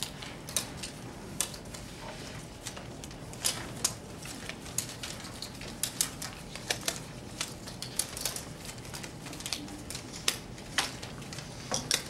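Irregular light clicks and taps of a roomful of people sorting and setting down items on tabletops, over a low steady room hum.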